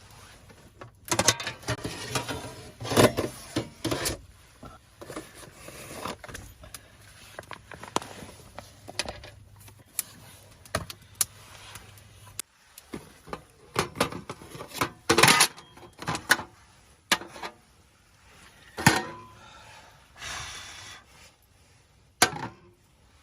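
Objects being handled by hand: a string of separate clicks, knocks and short scraping and rubbing noises, with a faint low hum that cuts off about halfway through.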